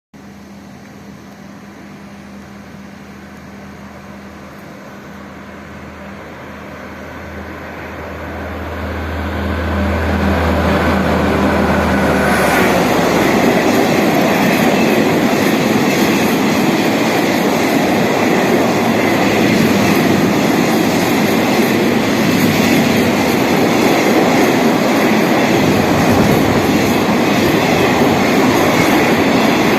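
SNCF BB 69400-series diesel-electric locomotive approaching, its engine drone growing louder over the first ten seconds or so. From about twelve seconds in, the steady rolling noise of a freight train's flat wagons passing on the rails takes over.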